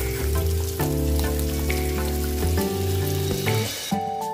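Hot oil sizzling and crackling from deep-frying breaded chicken, over background music. The sizzle cuts off near the end, leaving only the music.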